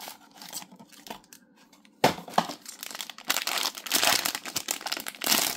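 Packaging crinkling and rustling as it is handled and unwrapped. It starts sharply about two seconds in, after a quiet start.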